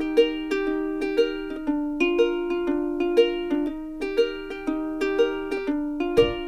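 Background music only: a light plucked-string melody in a steady, even rhythm, each note struck and fading, with a low beat coming in near the end.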